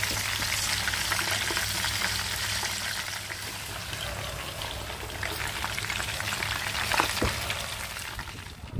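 Catfish frying in hot oil in a pan, a steady crackling sizzle, then snails cooking in a bubbling lemongrass and chili sauce. A single louder knock comes near the end.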